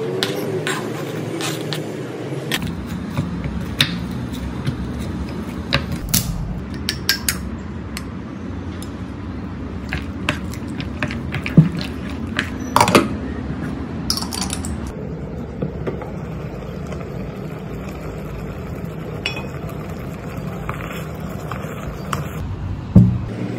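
Kitchen utensil sounds at a small electric pot: a knife scraping chopped sausage off a cutting board into the pot, then a wooden spoon stirring and knocking against the pot, in scattered clicks and knocks over a steady low rumble.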